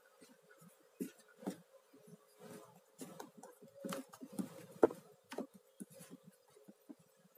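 Scattered light taps and knocks of kitchen handling, irregular and faint, the sharpest a little before five seconds in, over a faint steady hum.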